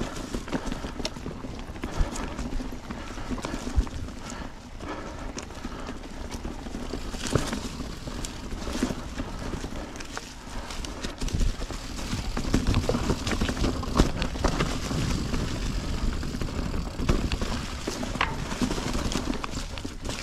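Mountain bike rolling along a dirt trail: a steady rumble of tyres on the ground, broken by many irregular knocks and rattles as the bike goes over roots and rocks.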